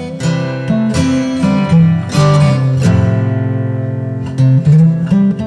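Background music: acoustic guitar playing plucked notes and strums.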